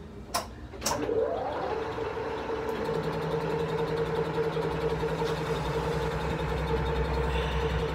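Two sharp clicks, then a metal lathe starts: the spindle and four-jaw chuck spin up with a rising whine over about half a second, then run at steady speed with a constant hum.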